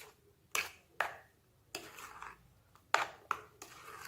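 Spoon stirring a thick mango and cream mixture in a bowl, clinking against the sides about six times at uneven intervals, with short wet scraping sounds after the knocks.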